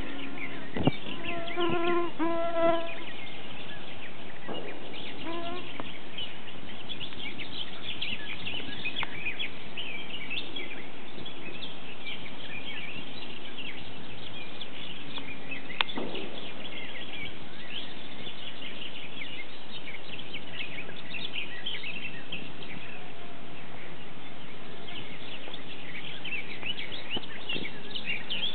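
Wild birds chirping and singing over a steady outdoor hiss, many short calls throughout. A short pitched call stands out about two seconds in, and a sharp click comes near the start and again about halfway.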